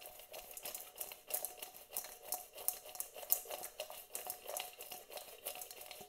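Seasoned baked sweet potato fries being tossed in a stainless steel mixing bowl: a continuous, irregular patter of soft clicks and taps as the fries tumble against each other and the metal.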